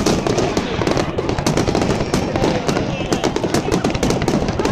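Aerial fireworks display: a dense, unbroken barrage of shell bursts, bangs following one another several times a second with crackling between them.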